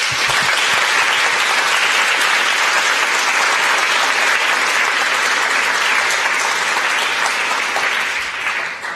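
Audience applauding in a lecture hall, steady clapping that dies away near the end.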